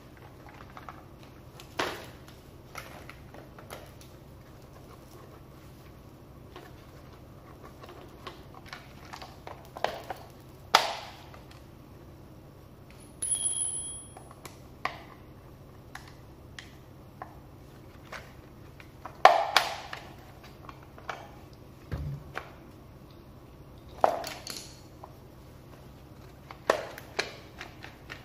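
Irregular clicks and knocks of a Makita DUX60 power head's plastic housing and a screwdriver being handled as the casing is taken apart, a few knocks louder than the rest. A brief high tone sounds about thirteen seconds in.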